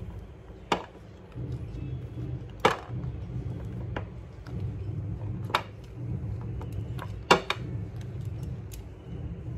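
Set chocolates being pushed out of a silicone mould and dropping onto a plate: four sharp clicks spaced a couple of seconds apart and a few fainter ticks, over a low steady hum.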